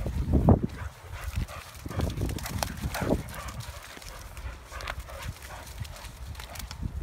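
Two dogs playing: short dog noises and scuffling with irregular knocks, loudest in the first half-second and again around two to three seconds in.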